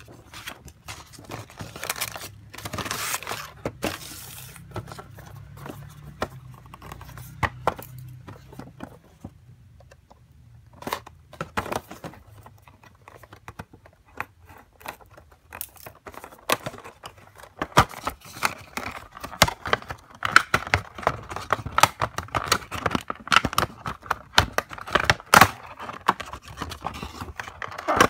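Hands opening a vinyl figure's cardboard box and plastic blister packaging: rustling, tapping, scraping and crinkling of card and plastic, busier in the second half.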